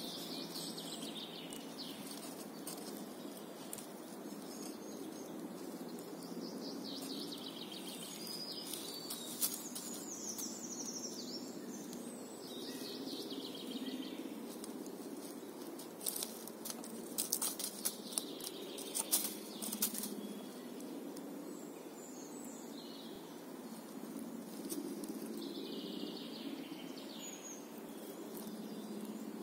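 A puukko knife with a scandi grind whittling a peeled wooden stick: a steady scraping and shaving, with a quick run of sharp clicks of the blade biting the wood a little past the middle. Birds chirp now and then in the background.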